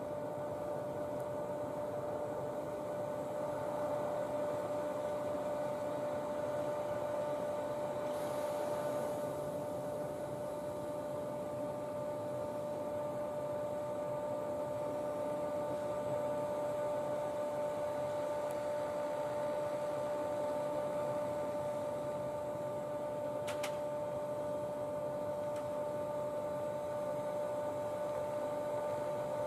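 Steady electrical hum with a few held tones from parked electric trains standing powered up with their lights on, their onboard electrical equipment running. A brief hiss comes about eight seconds in, and a short click about three quarters of the way through.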